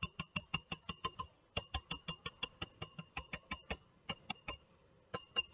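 Wire whisk striking the sides of a glass mixing bowl as it beats a thick chocolate mixture: quick regular clicks, about seven a second, each with a light glassy ring. The strokes pause briefly a few times.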